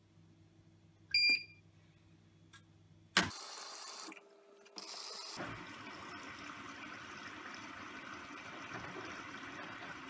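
A Bosch Serie 4 washing machine beeps once as its Start/Reload button is pressed, and there is a sharp click a couple of seconds later. From about five seconds in, water rushes steadily into the drum as the machine fills at the start of the wash.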